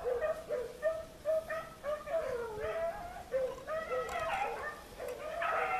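Pack of beagles baying and yelping on a rabbit's trail: short calls two or three a second, several voices overlapping.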